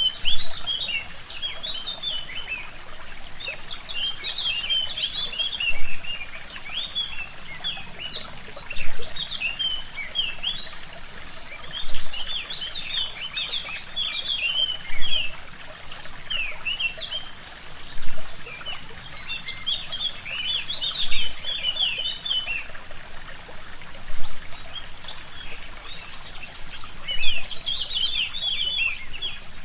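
A forest brook trickling steadily, with a songbird singing rapid twittering phrases of many quick, short notes, one phrase about every three seconds.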